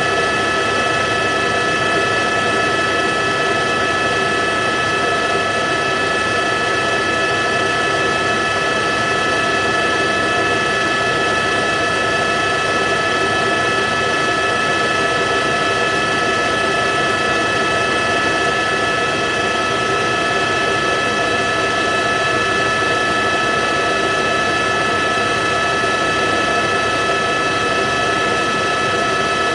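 Steady helicopter noise heard from on board, a continuous drone with several high steady whining tones that do not change.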